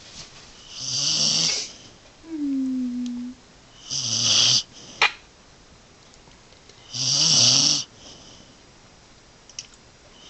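Sleeping dog snoring: three long snores about three seconds apart, each a low rattle with a hissy high edge. Between the first two snores comes a short falling whine, and a sharp click about five seconds in.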